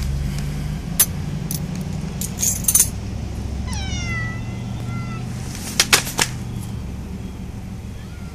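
A black long-haired domestic cat gives one drawn-out meow about four seconds in, its pitch rising and then levelling off. A few sharp clicks, louder than the meow, come about a second in, near three seconds and around six seconds, over a steady low hum.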